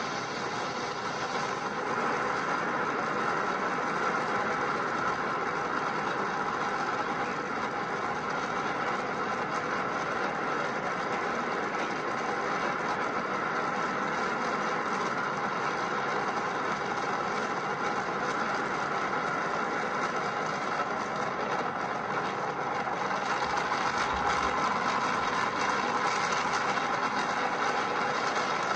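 Saturn V rocket's five F-1 engines roaring steadily at liftoff: a dense, unbroken rumble of rocket exhaust.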